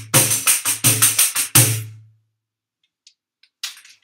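Headed tambourine struck by hand in a quick rhythmic run of about ten strokes, each a thump of the skin with jingles shaking. The run stops about two seconds in, the last stroke ringing on briefly, and a few faint taps follow near the end.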